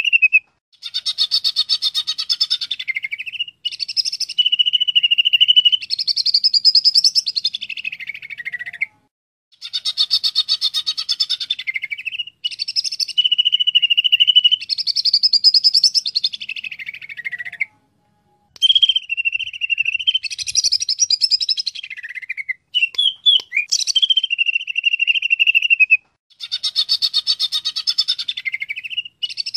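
Cucak ijo (green leafbird) singing: fast, buzzy trilled phrases alternating with a steady high whistled note, broken by short silences every few seconds. The same phrases come back over and over.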